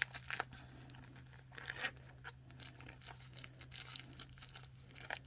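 Paper towels and contact lens packs being handled and packed into a small case: faint crinkling and rustling with scattered light clicks.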